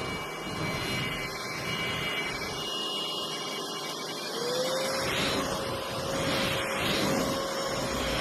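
NADALY cordless stick vacuum running with a steady rushing noise, its motor whine rising in pitch about four seconds in and then holding steady.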